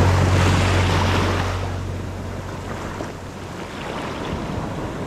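Small waves breaking and washing up the beach. A low steady hum underneath fades out about a second and a half in.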